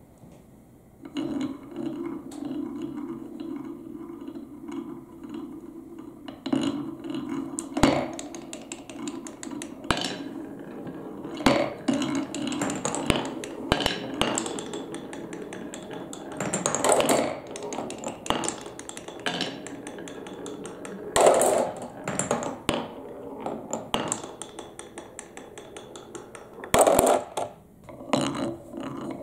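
Marbles rolling along grooved wooden Cuboro marble-run blocks and slopes, a steady rolling rumble that starts about a second in. It is broken by many sharp clicks and clacks, with several louder knocks as marbles drop between pieces and strike the wood and each other.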